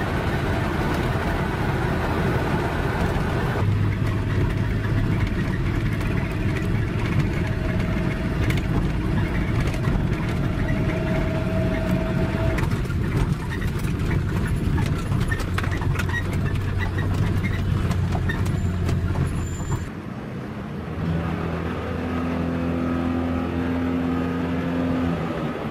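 Engine and road noise heard from inside a moving vehicle's cabin, a steady rumble with a low engine hum. The sound changes abruptly about four seconds in and again about twenty seconds in, where it drops to a quieter, steadier engine hum.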